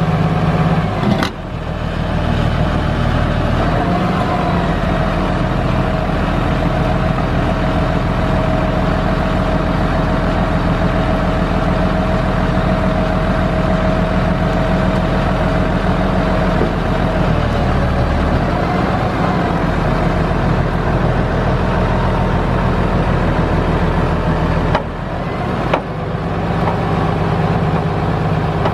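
Case IH 5230 tractor's Cummins 5.9-litre inline-six diesel engine running steadily, with a thin steady whine over it for several seconds in the first half. The sound breaks off briefly about a second in and again near the end.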